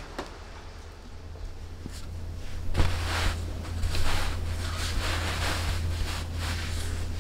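Hands smoothing and rustling an embroidered fabric cloth laid over an ironing board, with one light knock about three seconds in and a steady low hum underneath.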